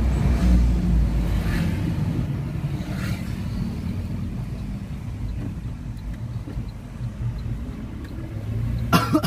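Vehicle engine and road rumble heard from inside the cab while driving at low speed, steady and low, easing off a little in the middle. A brief sharper sound comes about nine seconds in.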